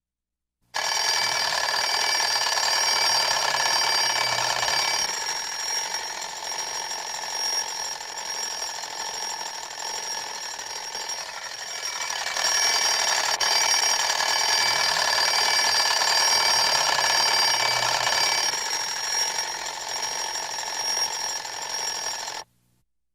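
Alarm bell ringing continuously with a rapid striker, starting suddenly just under a second in. It rings loud for about four seconds, softer for about seven, loud again for about six, then softer until it cuts off suddenly.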